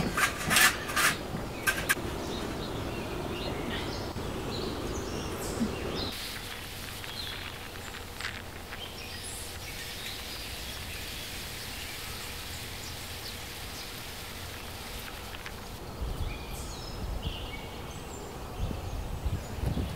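Rural outdoor ambience: scattered bird chirps over a steady background hiss. A few sharp knocks come in the first two seconds, and there is some low rumbling near the end.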